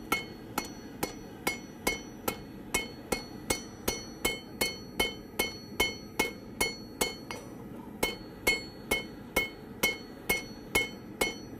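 Blacksmith's hammer striking a mild steel bar on an anvil in a steady run of blows, a little over two a second. Each blow rings with a clear metallic tone. The blows round an octagonal stem into a circle while the steel is at a black heat, and they stop just before the end.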